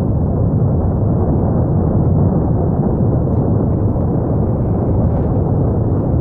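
Steady, deep rumble of an erupting volcano, with no separate blasts standing out.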